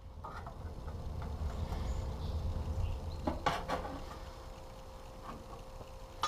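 Low steady rumble with a faint steady hum, and a few light knocks about three and a half seconds in.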